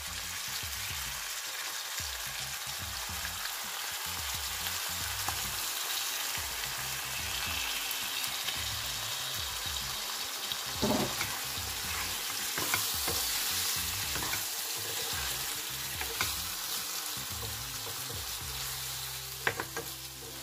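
Raw chicken pieces sizzling steadily in hot oil and sautéed onions in a non-stick wok, with a few scattered knocks; near the end a wooden spatula starts stirring them.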